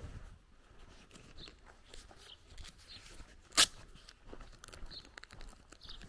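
Footsteps rustling through long grass, with scattered faint bird chirps and one sharp snap a little past halfway through.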